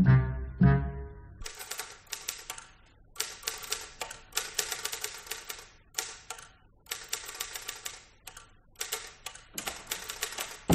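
A few notes of brass music end about a second and a half in, then a typewriter clatters in quick runs of keystrokes broken by short pauses.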